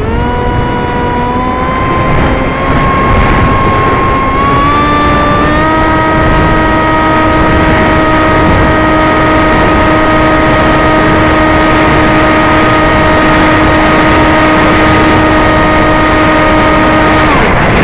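An RC glider's electric motor and propeller whine, heard through the onboard camera over loud rushing wind. The pitch climbs in small steps over the first five or six seconds, holds steady, and then drops away suddenly near the end.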